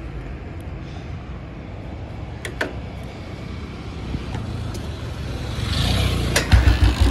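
Old Royal Enfield Bullet Electra 350 single-cylinder engine with a steady low rumble, then a louder run of deep thuds near the end as the kick-starter is worked; the bike is acting up and reluctant to run, its ignition wiring just re-seated.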